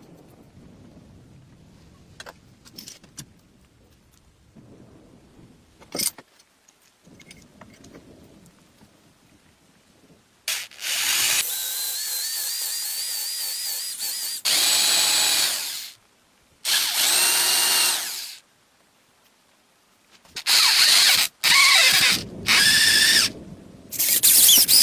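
Handheld electric power tool run in bursts: faint handling noise and a click at first, then from about ten seconds in the tool spins up and runs with a whine in several starts and stops, the later ones short.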